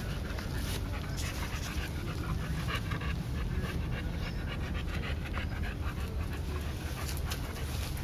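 A young Olde Boston Bulldogge panting hard with its mouth open, quick even breaths one after another, a sign of the dog being out of breath from play.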